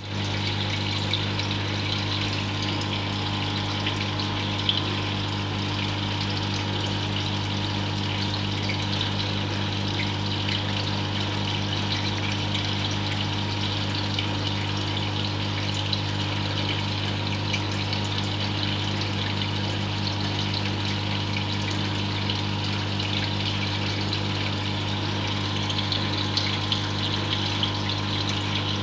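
Reef aquarium equipment running: a steady electric pump hum with water circulating, trickling and fizzing over it.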